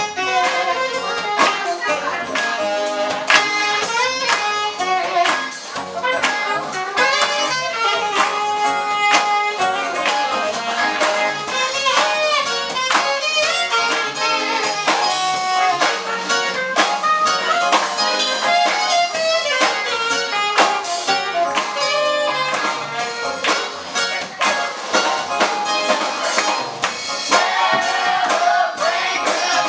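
A choir singing an upbeat song with a live band, trombone and other brass playing, over a steady beat with hand claps.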